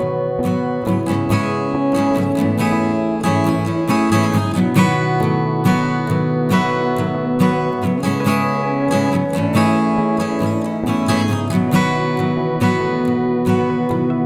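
Background music: acoustic guitar playing, plucked and strummed in a steady rhythm.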